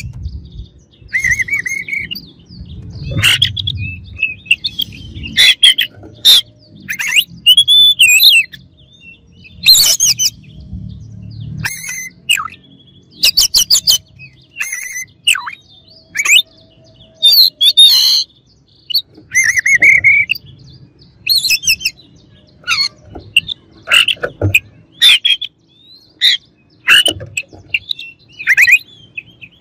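Oriental magpie-robin singing loudly: a long run of short, varied phrases of clear whistles, falling sweeps and harsh scratchy notes, separated by brief pauses.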